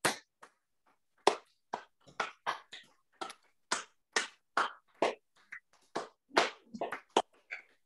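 Hands clapping: about twenty separate, sharp claps at an uneven pace of two to three a second, with silence between them.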